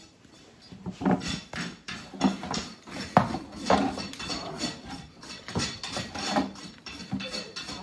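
Farrier's hand nippers cutting and scraping at an overgrown horse chestnut, the horny growth on the horse's leg. A run of irregular crunching strokes, about two a second, starts about a second in.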